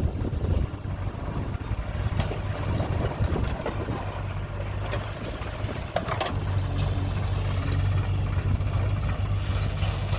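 Heavy diesel machinery running steadily at a soil-loading site, with a few sharp knocks. From about six seconds in the engine note grows stronger and steadier.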